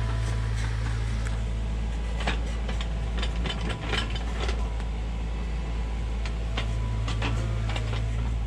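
Sany U35 mini excavator's diesel engine running steadily as it digs, with scattered scrapes and knocks of the steel bucket working stony soil.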